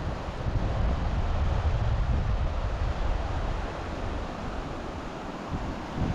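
Wind buffeting the microphone over a steady rush of flowing water. The low buffeting is heaviest for the first three seconds or so, then eases.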